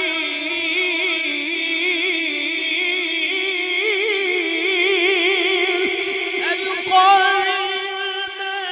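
A man singing a Punjabi naat, holding long notes with a wavering, ornamented pitch. Near the end he moves into a louder, higher phrase.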